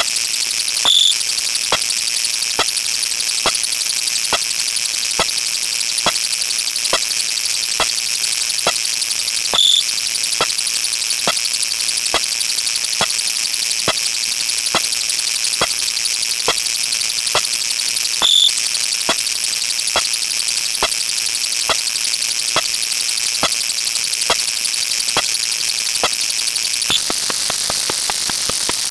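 Electronic sound effects: a steady high hiss with a regular click a little under twice a second, and a short high beep three times, about nine seconds apart. Near the end the hiss changes.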